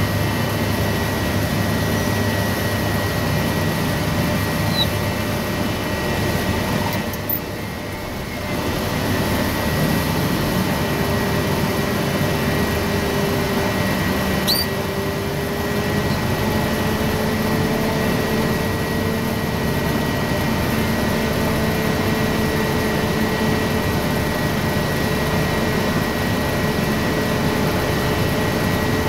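Large forklift's engine running steadily, heard from inside the operator's cab, with a steady high whine over it. The noise dips briefly about seven seconds in.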